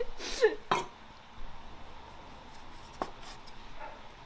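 Chinese cleaver slicing through boiled pork belly on a wooden chopping board: soft scraping strokes, with sharp knocks of the blade reaching the board, one near the start and one about three seconds in.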